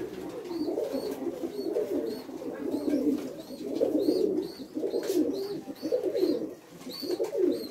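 Several fantail pigeons cooing in overlapping, rolling low phrases, with faint short high-pitched chirps recurring through it.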